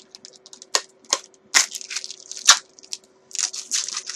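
Protective plastic film being peeled off a guitar pickguard, crackling and crinkling in short irregular bursts, with a few louder snaps. A faint steady hum sits underneath.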